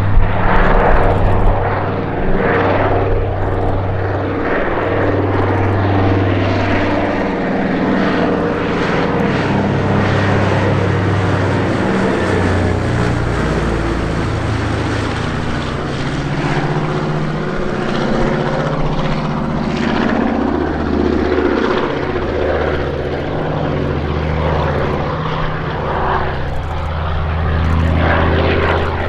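Consolidated PBY Catalina flying boat's twin Pratt & Whitney R-1830 radial engines running in a continuous propeller drone during a low display pass. The engine note drops in pitch about halfway through as the aircraft passes overhead.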